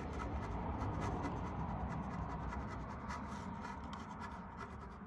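A flat scraper blade scraping old gasket residue off the metal carburetor mounting flange of an Onan 5500 generator engine: rapid gritty scratching strokes that grow fainter near the end.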